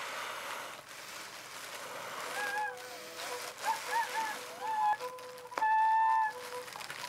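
Home-made bagpipe made from a plastic garbage bag and flute pipes. After a rush of air, the pipes start sounding about two seconds in: a steady drone note under a higher chanter note that wavers and bends in pitch, then settles into a louder held tone near the end. The tuning is shaky.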